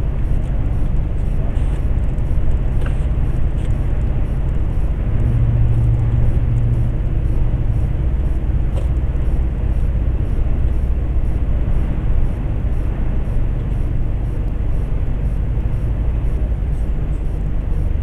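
Steady low drone of a heavy truck's diesel engine and tyre rumble heard inside the cab while cruising at motorway speed, with the engine hum a little stronger for a couple of seconds about five seconds in.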